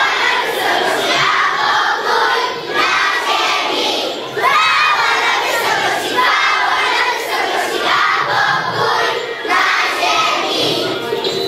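A crowd of young children shouting and cheering together, loud, rising in bursts about every second and a half.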